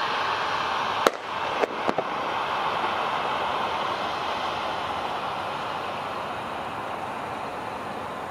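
Jet airliner engines making a steady rushing noise that slowly fades. About a second in come three sharp clicks in quick succession.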